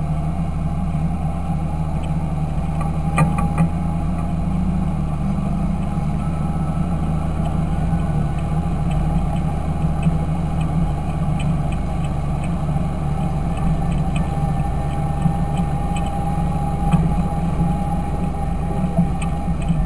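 Fendt Favorit 926 tractor's diesel engine running at a steady speed: an even, deep drone with a faint whine above it through the middle and a few light clicks.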